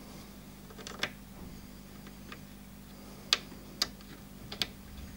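A few small sharp metal clicks at irregular intervals, the loudest two about three and four seconds in: a hand-held Allen key seating in and turning screws in the base of a plastic label printer, tightening them down flush.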